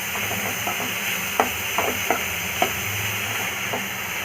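Chopped vegetables sizzling in oil in a kadai while being stirred, with the spatula clicking and scraping against the pan several times.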